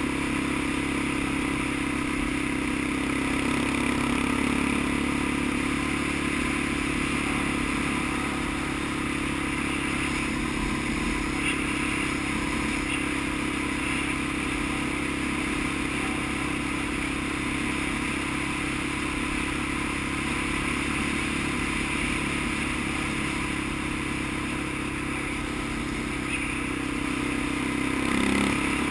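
Engine of a small off-road vehicle running at a steady pace while driving along a dirt road, with rough-road rattle, swelling briefly near the end.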